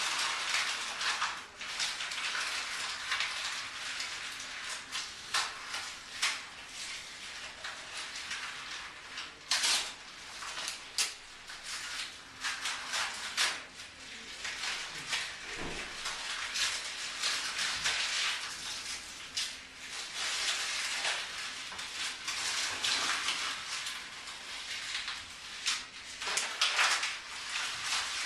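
Pen scribbling and scratching across paper in quick, irregular strokes, recorded close to the microphone as a Foley effect of crossing something out.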